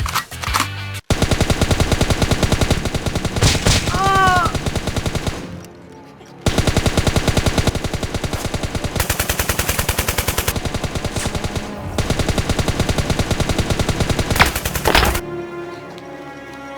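Rapid automatic gunfire, machine-gun style, in two long bursts with a pause of about a second between them; it stops about fifteen seconds in, leaving background music.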